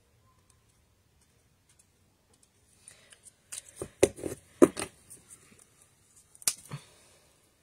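Stampin' Blends alcohol markers being capped, set down and picked up on a desk: plastic caps clicking and marker barrels knocking. A cluster of sharp clicks about three and a half seconds in, and two more near the end.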